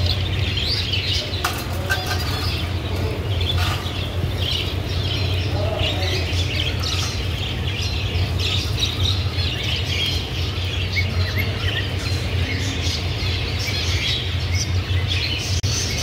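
A cage full of zebra finches chirping constantly in short high calls, with wings fluttering as birds fly about the cage, over a steady low hum.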